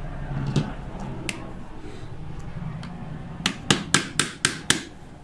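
Light tapping with the back of a pair of pliers on a screwdriver used as a drift, driving a retaining shaft out of a BMW door handle: two single taps, then a quick run of about six taps about four a second near the end.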